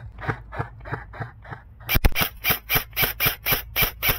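Footsteps running through dry leaf litter and brush, about four crunching steps a second, getting louder and harsher about two seconds in, with one sharp crack.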